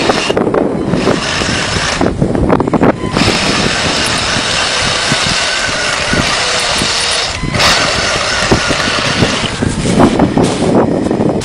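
1:16-scale M41A3 Walker Bulldog RC tank on the move: its drive motors and gearboxes run while the metal tracks clatter in a dense, rapid rattle. The sound dips briefly a few times, and there is a higher whine in the middle stretch.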